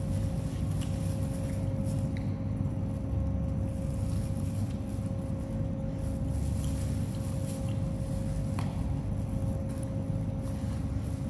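Steady low mechanical rumble with a constant hum, with a few faint clicks over it.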